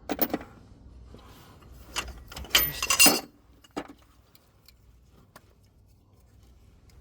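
Metal hand tools clinking and rattling as they are handled. There are a few sharp clinks near the start, a loud burst of clattering about three seconds in, then scattered light ticks.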